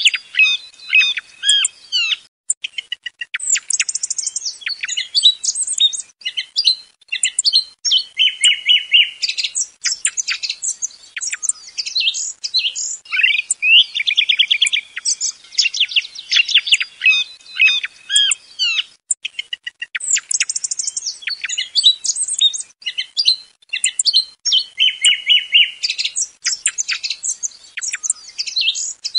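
Song thrush song: quick, varied, high-pitched phrases of rapid notes, broken by short pauses. It is a clean recording without background noise, of the kind played from a caller as a lure for hunting thrushes.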